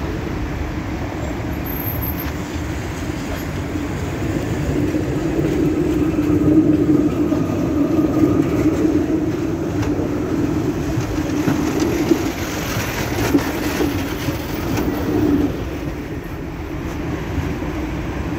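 Articulated electric tram passing close by on street track: a steady low hum of motors and wheels on the rails that builds to its loudest about halfway through and then eases off.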